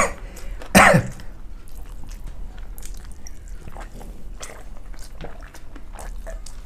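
A person clears their throat with a short loud cough about a second in. It is followed by soft chewing and scattered small clicks of hand-eating from a metal platter.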